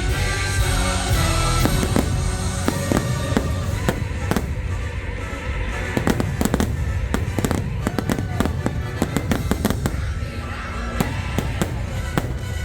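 Fireworks bursting over the show's music from loudspeakers, with a rapid run of bangs in the middle.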